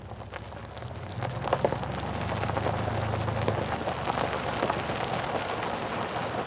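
Rain falling: a dense patter of drops over a steady low rumble, growing louder over the first second or so.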